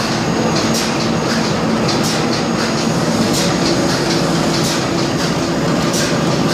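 Plastic bag making machine running, a steady mechanical hum with a short hiss repeating about every two-thirds of a second as it cycles.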